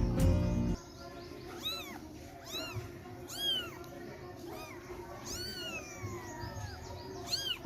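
A kitten meowing: five short, high-pitched meows spaced about a second apart, the fourth longer and sliding down in pitch.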